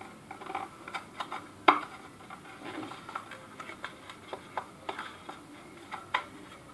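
Scattered light clicks and taps of small packaging being handled as a SIM ejector tool is worked out of it. One sharper click comes a little under two seconds in.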